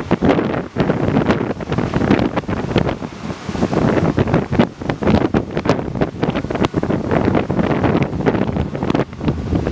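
Wind buffeting the microphone in loud, uneven gusts, over the low running of heavy diesel mining machinery: a wheel loader and a haul truck.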